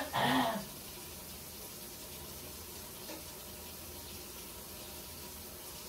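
A tap running steadily, a faint even hiss of water heard from another room, with a short vocal sound off-camera at the very start.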